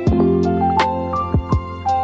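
Soft instrumental background music with held notes changing in a slow melody over a steady, gentle beat of drum hits.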